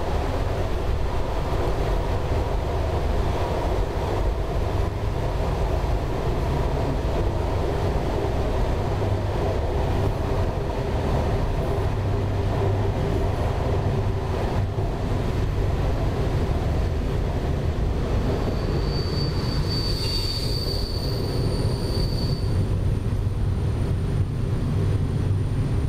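Train running along the track, heard from on board: a steady rumble of wheels on rails. About three-quarters of the way through, a high steady squeal joins for about three seconds.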